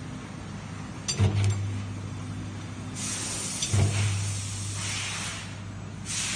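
HDK-400 cut-to-length machine for roll materials running with a steady low hum. Sharp clicks come about a second in and again near four seconds, each followed by the hum swelling. Stretches of hissing come in the second half.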